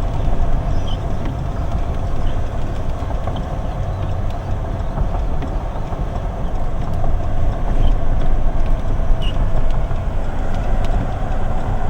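Road and engine noise inside a moving vehicle: a steady low rumble with a few faint ticks of rattling.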